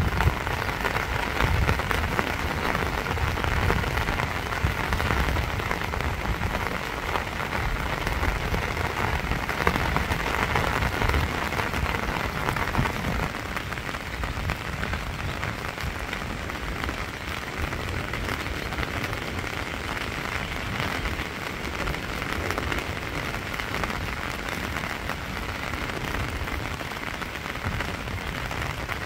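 Steady rain falling on lake water and water-lily leaves, a dense even patter of drops that eases slightly about halfway through.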